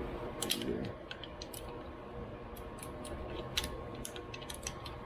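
Small metal carburetor parts clicking and tapping as a Motorcraft 2150 carburetor's choke pull-down is taken apart: a scattering of light, irregular clicks over a faint steady hum.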